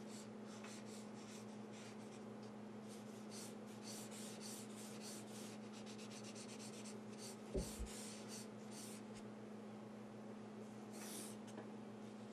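Chartpak marker strokes scratching across newsprint paper in quick repeated bursts, over a steady low hum. A single thump comes about halfway through.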